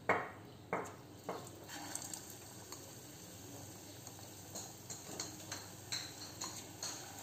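Batata vada, a batter-coated potato ball, frying in hot oil in a kadhai: steady sizzling and bubbling with scattered light crackles. Three quick clatters of kitchen utensils come in the first second and a half.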